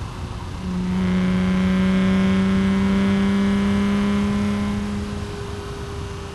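BMW E36 M3's straight-six through a Supersprint street exhaust with no catalytic converter, heard from inside the cabin. It pulls at a steady pitch under throttle with a loud exhaust drone, which swells about half a second in and eases off about five seconds in.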